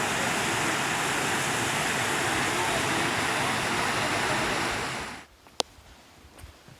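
Steady rushing roar of a waterfall, cutting off abruptly about five seconds in; a few faint clicks follow.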